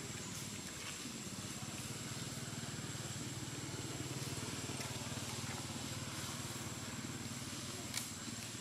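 A motor running steadily with a low hum, under a thin, steady, high-pitched whine; one sharp click about eight seconds in.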